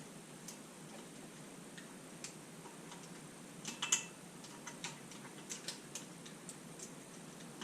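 Scattered light clicks and taps of hand tools on metal bike hardware, irregularly spaced, with a brief cluster of sharper metallic clicks about four seconds in.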